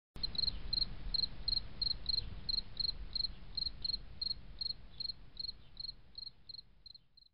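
A cricket chirping in a steady rhythm, about three short chirps a second, over a low background rumble, the whole fading away near the end.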